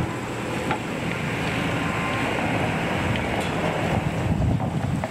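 Steady road traffic noise with wind buffeting the microphone, picked up by the camera's own mic.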